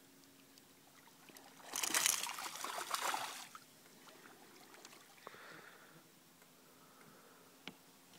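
A black bass striking a topwater walking lure on the surface: a splash of water about two seconds in, lasting under two seconds, followed by a smaller slosh and a single click near the end.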